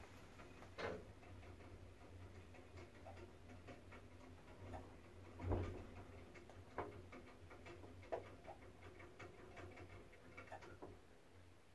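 Otis passenger lift car descending: a faint, steady low hum from the ride, with scattered light clicks and a few louder knocks from the cab, the hum fading near the end.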